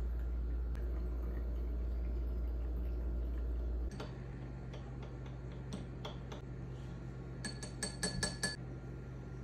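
Metal bar spoon stirring a drink in a small stemmed glass, clinking against the glass: scattered ticks, then a quick run of about eight ringing clinks near the end. A steady low hum fills the first four seconds.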